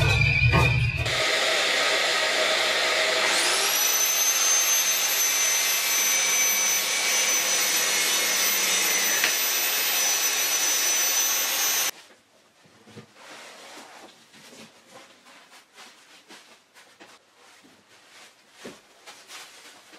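Handheld power tool running with a vacuum dust-extraction hose attached: a steady loud rush of motor and suction noise. About three seconds in, a high motor whine spins up and then holds steady. The noise cuts off suddenly about twelve seconds in, leaving faint knocks and handling sounds.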